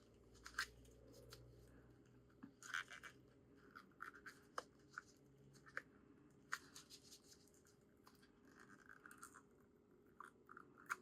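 Faint scratching, rubbing and a few light clicks of cured resin pieces being worked out of a mold by hand.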